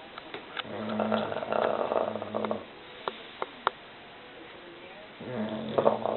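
English bulldog snoring in its sleep: two long snores, each lasting about two seconds, the second starting about five seconds in. A few short clicks come in the gap between them.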